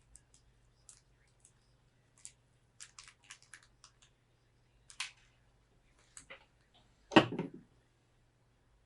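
Light clicks and taps of small computer parts being handled, with a quick run of clicks about three seconds in and one louder knock about seven seconds in.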